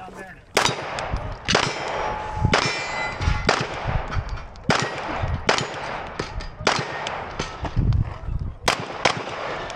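About ten shots from a 9mm Canik Rival pistol, spaced roughly a second apart. Steel targets ring with a metallic clang after several of them.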